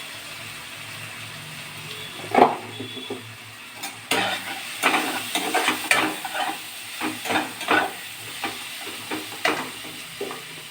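Stirring in a frying pan: a utensil scrapes and knocks against the pan in irregular strokes, starting about two seconds in, over a low sizzle of onion masala frying with freshly added ground spices.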